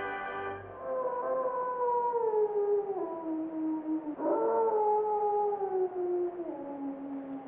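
A wild canid howling: two long howls. The first glides slowly down in pitch for about three seconds. The second rises quickly, then falls slowly for about three seconds.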